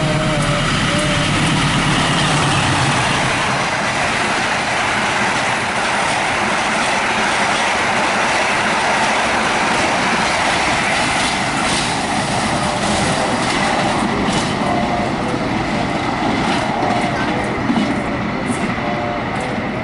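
Express passenger train passing close by at speed: a steady loud rush of wheels on rail, with sharp clicks from the wheels over rail joints in the second half.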